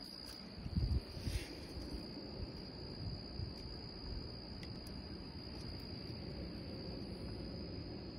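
A steady, high-pitched insect trill over low rumbling noise, with a few low bumps about a second in.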